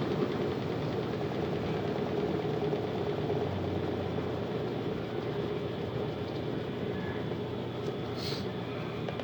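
Colormaq LCA12 top-load washing machine in its spin cycle, its motor and drum running with a steady hum. It spins smoothly without jumping, the balanced load held by a newly fitted hydro-ring. A short high squeak comes near the end.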